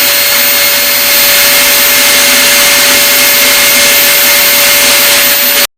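Electric drill driving a homemade disc sander, running at a steady speed with a steady whine and hiss. It cuts off abruptly near the end.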